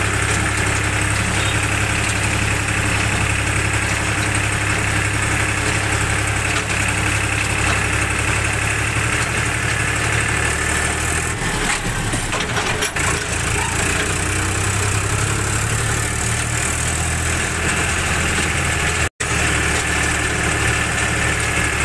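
Tractor engine running steadily with a constant low drone while the tractor is driven along, the sound cutting out for an instant near the end.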